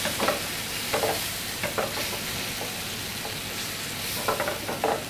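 Garlic and onion frying in hot oil in a pan, sizzling steadily as peanut sauce is stirred in, with a few brief stirring sounds.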